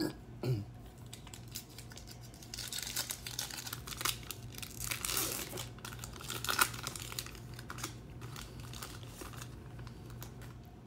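Foil wrapper of a Topps Chrome trading-card pack being torn open and crinkled. The crackling rustle with sharp little rips starts about two and a half seconds in and fades out after about seven seconds.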